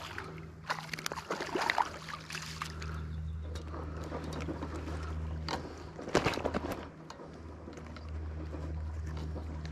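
Water splashing in two short spells as a small hooked smallmouth bass thrashes at the surface while being reeled in, over a steady low hum.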